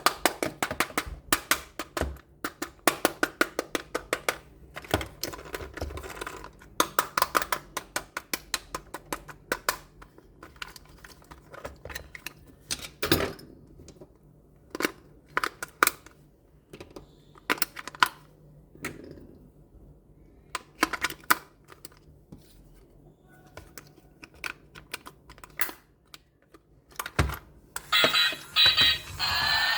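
Small sharp clicks and taps of die-cast toy truck parts being handled and moved, in rapid runs at first and then sparser. Near the end a louder whirring starts, carrying a wavering high whine.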